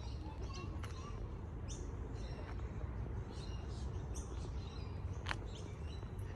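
Several birds chirping, with many short, high calls overlapping over a steady low rumble.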